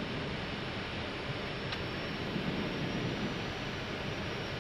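Steady cockpit noise of an Airbus A319 on final approach with gear and flaps down: an even hiss of airflow over the nose with the engines at approach thrust beneath it. One faint click about two seconds in.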